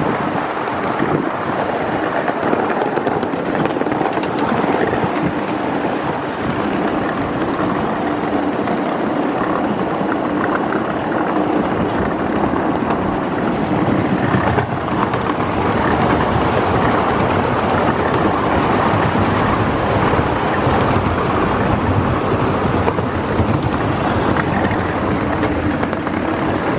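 A 1/5-scale ride-on miniature train running along its track, heard from a car it is pulling: a steady, continuous rolling and rattling noise of the cars on the rails, with wind on the microphone.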